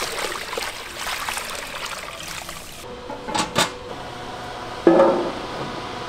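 Water poured from a plastic bowl into a large stockpot of water, splashing steadily for about three seconds and then stopping. About five seconds in, a handful of rice-cake sticks lands in an empty stainless steel tray with a single ringing clatter.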